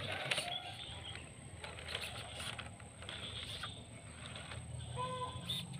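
Small electric RC pickup truck driving over dirt and leaf litter: a steady low motor hum with a thin high whine, and scattered clicks and crackles from the tyres on twigs and soil.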